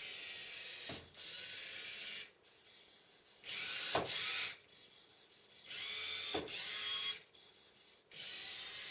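Small tracked robot's geared drive motors and treads whirring on carpet, in stop-and-start runs: about four runs of a second or two each, with short pauses between.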